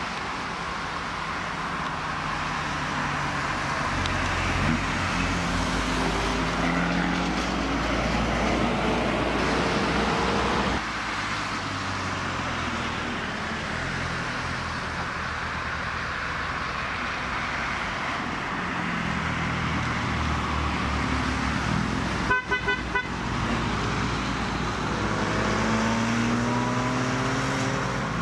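A stream of classic and sports cars driving past one after another, their engine notes and tyre noise swelling and fading as each goes by, with some engines revving up near the end. About 22 seconds in, a car horn gives three short toots.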